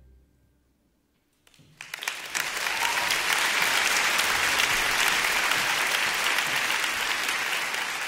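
The last notes of the music fade into a moment of near silence, then a concert audience starts applauding about one and a half seconds in, quickly swelling to full, steady applause.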